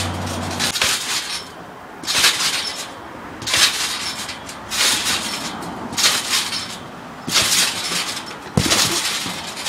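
Garden trampoline being bounced on: a burst of spring and mat noise at each landing and take-off, repeating about every 1.3 seconds, with a heavier thump near the end.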